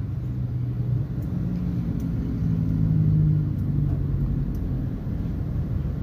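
Water dispenser tap running water into a glass, heard mostly as a steady low rumble that swells a little about three seconds in.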